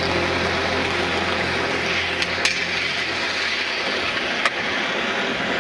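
Skateboard wheels rolling on asphalt, with two sharp clacks of the board about two and a half and four and a half seconds in, the second the louder, around the board grinding along a low flat metal rail.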